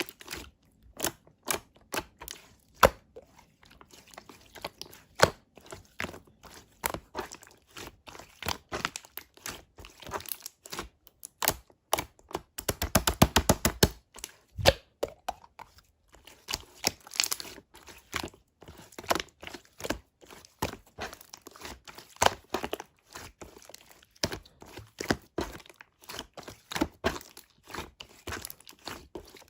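Red slime being squished, poked and stretched by hand, giving a steady string of sharp clicks and pops. About halfway, there is a quick run of many rapid clicks.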